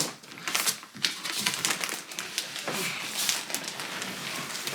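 Cardboard box and packaging being handled and pulled apart: an irregular run of sharp crackles, scrapes and knocks.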